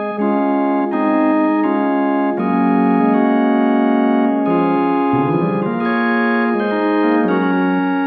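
CollaB3 virtual tonewheel organ (a Hammond B3 emulation) on its Grand Organ preset, playing full sustained chords that change about every second. About five seconds in, a rising slide runs up through the low notes.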